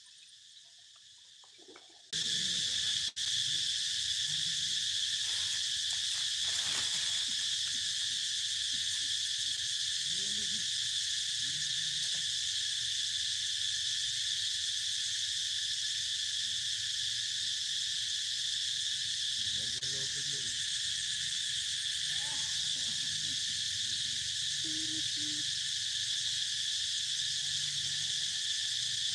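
Insect chorus in the forest: a steady, shrill buzz at two fixed pitches that starts suddenly about two seconds in and holds on unchanged.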